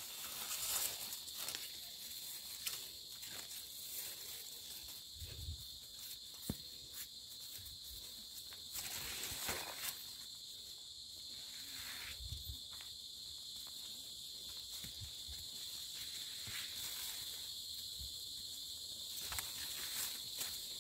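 A steady high-pitched insect drone from the surrounding woods, with scattered footsteps and the rustle of leaves and undergrowth as someone walks along a forest path.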